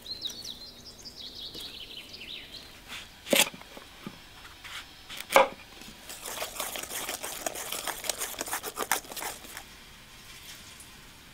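A knife cutting raw pumpkin on a wooden board: two sharp, loud chops about two seconds apart, then a quick run of crunchy slicing cuts lasting about three seconds.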